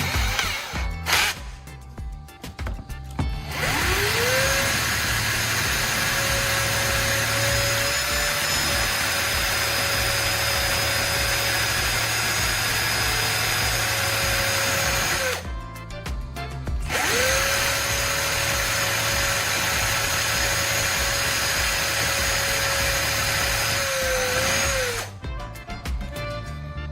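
Power drill spinning up with a quick rising whine, running steadily for about twelve seconds and stopping, then spinning up again and running for about eight seconds more.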